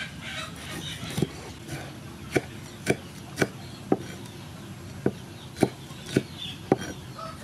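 Large cleaver-style kitchen knife chopping through red chili peppers onto a wooden cutting board: about nine sharp knocks, roughly two a second with a few longer gaps.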